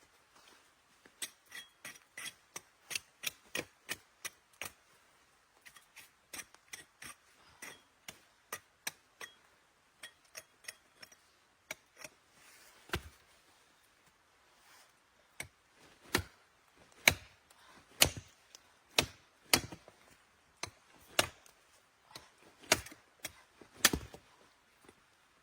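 A hand tool strikes repeatedly, giving sharp knocks in runs. The first half has quicker, lighter strikes of about two a second. From about two-thirds of the way in come heavier, louder blows of roughly one a second.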